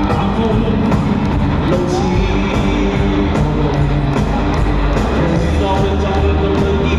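Cantopop song playing in a rock style: full band with guitar, steady and loud throughout.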